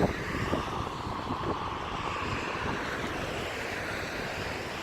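Steady distant engine rumble with a faint hum whose pitch shifts slowly.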